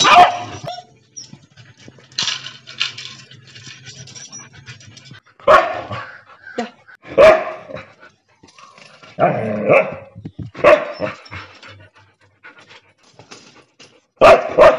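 Dogs barking at each other through kennel bars, a beagle and a Siberian husky: loud separate barks every second or two with short gaps, one longer outburst about nine seconds in. The barking is the beagle's jealous hostility toward the newly arrived husky.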